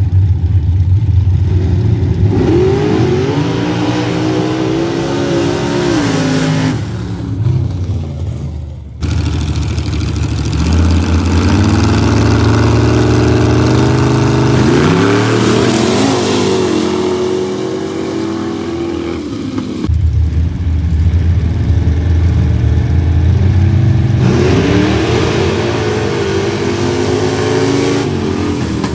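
Pickup truck engines at a dirt drag strip, running at the line and then revving hard and accelerating off the start, the pitch climbing sharply; the sound breaks off abruptly twice as one run gives way to the next.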